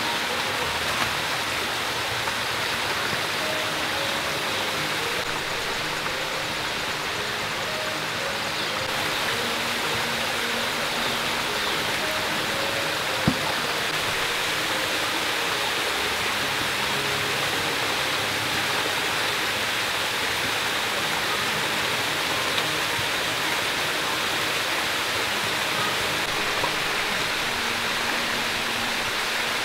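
Steady rush of flowing stream water, an even hiss that holds level throughout, with one sharp click about 13 seconds in.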